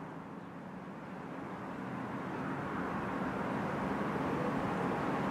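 Diesel locomotives approaching, still out of sight: a steady engine rumble with a faint high whistle, growing louder from about a second in. The convoy is led by a BR Class 40.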